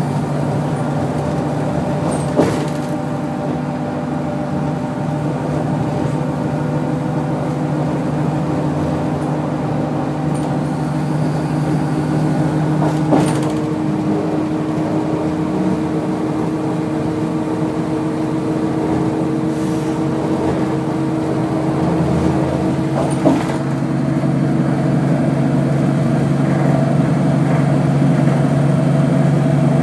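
Inside a NABI 40-LFW transit bus under way: its Cummins ISL-G natural-gas engine and Allison B400R transmission give a steady drone over road noise. Three brief knocks or rattles come about ten seconds apart.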